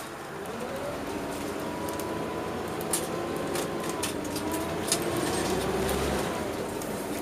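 Scania OmniCity single-deck bus heard from inside the saloon as it accelerates. The engine and driveline note rises in pitch, drops at a gear change about four seconds in, then rises again with a deeper rumble. A few sharp rattles come from the bus interior.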